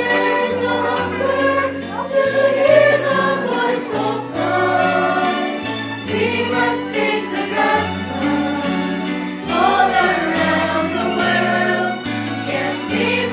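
Music: an upbeat Christian song with group singing over a bass line that changes note about once a second, with cymbal-like strokes now and then.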